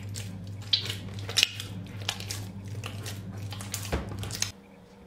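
Wet, sticky high-hydration bread dough squelching as a bare hand squeezes and folds it in a plastic bowl, in irregular squishes and slaps. A steady low hum runs under it and cuts off about four and a half seconds in.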